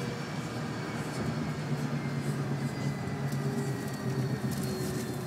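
Tram running, heard from inside the car: a steady rumble of the wheels on the rails with a faint steady whine, and a few light clicks and rattles in the second half.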